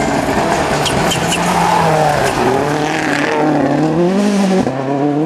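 Rally car engine revving hard under acceleration. Its pitch climbs, then drops sharply at a gear change about four and a half seconds in.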